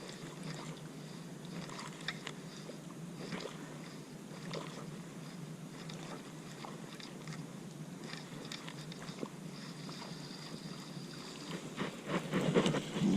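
Abu Garcia Black Max baitcasting reel being worked through a lure retrieve, with small scattered clicks and crunchy handling noise. The noise grows louder near the end.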